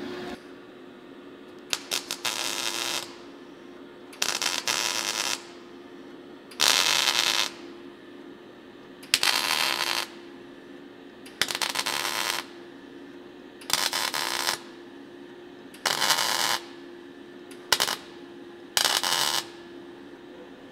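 MIG welder putting a series of tack welds along the joint of a sheet-steel replacement gutter: nine short bursts of arc, most about a second long and about two seconds apart, one near the end very brief, over a steady low hum.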